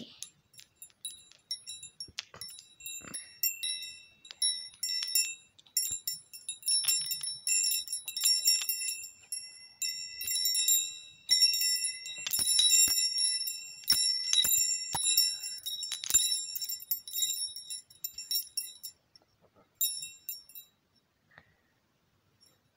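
Small metal wind chime being shaken, its rods striking each other in an irregular jangle of high ringing notes. It starts sparsely, grows busy, and stops near the end after one last short jangle.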